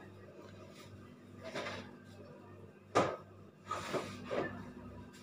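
Faint handling noises at a kitchen work surface: a couple of soft rustles and clacks, with one sharp knock about three seconds in, over a low steady hum.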